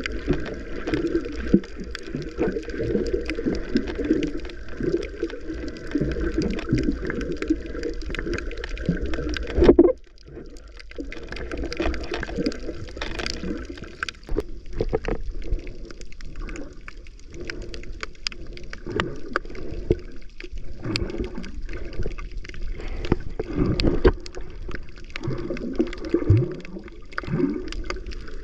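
Muffled underwater water noise picked up by a submerged camera: water sloshing and gurgling with small clicks and short bubbling glides. It drops away suddenly about ten seconds in, then resumes.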